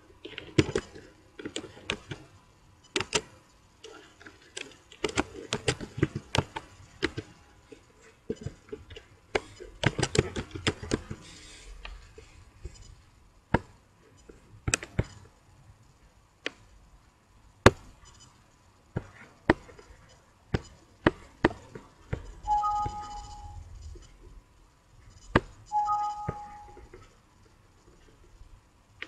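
Clicking of a computer keyboard and mouse, dense and irregular for the first ten seconds or so, then sparse single clicks. A short two-note Windows alert chime sounds twice in the last third.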